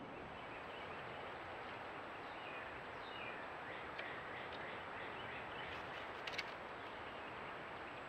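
Outdoor ambience through a trail camera's microphone: a steady hiss with faint bird calls, and a few sharp clicks, the loudest about six seconds in.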